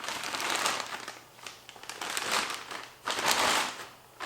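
Plastic wrapping on a roll cage's tubular main hoop crinkling as it is handled, in three rustling bursts.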